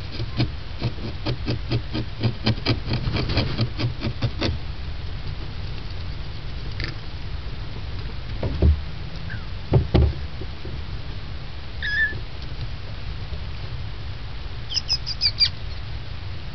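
Very young kittens giving short high-pitched squeaking mews, one about twelve seconds in and a quick cluster of three or four near the end. Before them come a rapid run of soft clicks, about five a second, for the first four seconds or so, and two dull thumps in the middle, which are the loudest sounds.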